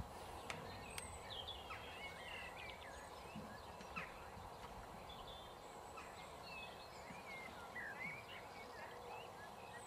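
Small birds singing and chirping in short, repeated phrases over a steady outdoor background hiss, with a few faint clicks.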